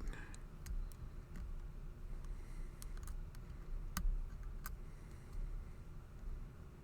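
Small scattered clicks of a lock pick and tension wrench working the pin stack inside a Master Lock No. 19 padlock fitted with security pins, with a sharper click about four seconds in and another shortly after.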